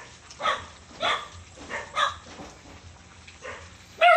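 A dog barking repeatedly, about two barks a second, with the loudest, longest call near the end.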